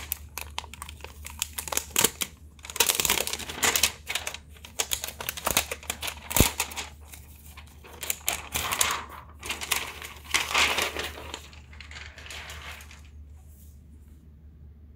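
Thin clear plastic protective film being peeled off a laptop lid and crinkled in the hand, in irregular rustling bursts with a few sharp clicks, dying down near the end.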